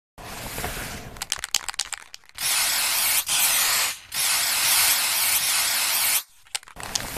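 Aerosol spray-paint can: a run of quick clicks, then three long hisses of spraying, the last lasting about two seconds, with a few more clicks near the end.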